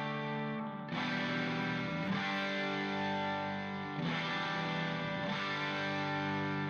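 Background music: distorted electric guitar with effects, chords changing about every second or two.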